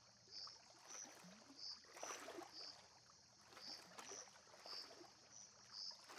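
Near silence: faint outdoor ambience with a soft high chirp repeating about twice a second.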